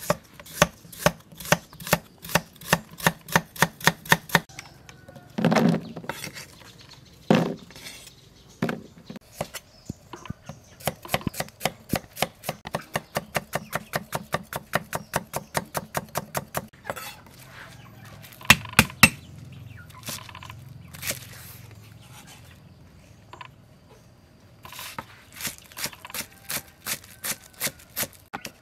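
Cleaver-style kitchen knife chopping vegetables (carrot, spring onions) on a wooden cutting board: runs of quick, even knocks of the blade on the board, about three to five a second, with short pauses and a few heavier thuds between runs.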